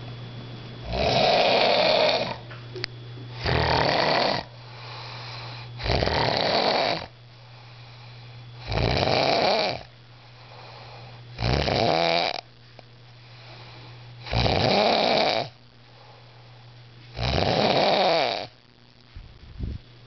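A man snoring, even louder than his friends: seven long, loud snores, one about every two and a half to three seconds.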